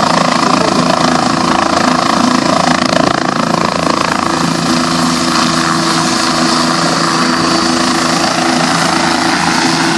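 Helicopter hovering low close by. Its rotor and engine run steadily, with a faint high whine over them.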